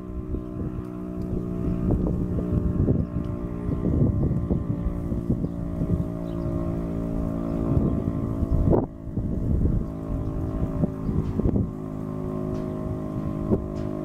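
Federal Signal Thunderbeam RSH-10 outdoor warning siren sounding its alert signal, a steady held tone, with wind buffeting the microphone.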